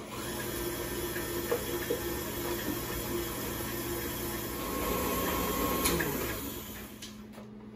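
Electric stand mixer running steadily, its beater creaming butter and sugar in a metal bowl; it is switched off near the end.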